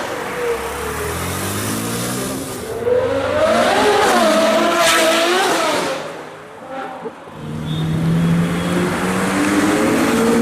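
Ferrari engine revving hard. Its pitch climbs over the first few seconds, wavers up and down, and drops off briefly about six seconds in. It then climbs steadily again.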